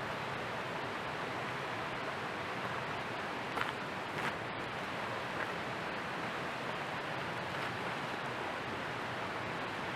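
Steady sizzling hiss of food cooking over a wood campfire, with a few sharp crackles and pops near the middle.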